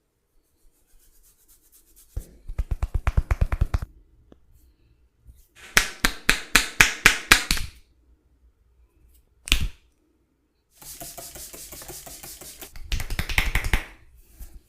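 A barber's hands beating out a percussive massage: runs of rapid slaps and chopping taps, about eight a second, then a single sharp smack about two-thirds of the way in. Near the end comes a stretch of brushing noise with another quick run of taps.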